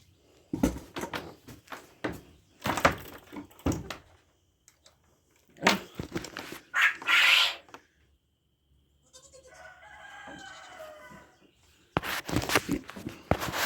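Footsteps in rubber boots through mud and standing water, with a louder sloshing burst about six seconds in. Midway, a rooster crows once for about two seconds.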